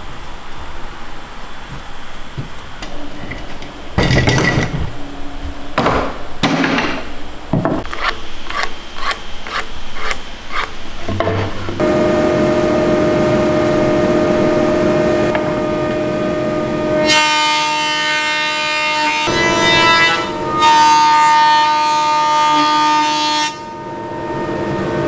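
Sharp knocks on wood, a few and then a quicker run, while glued boards sit in bar clamps. About halfway through, a large stationary woodworking machine with a digital thickness setting starts running with a steady whine, and it gets louder and fuller twice as stock passes through it.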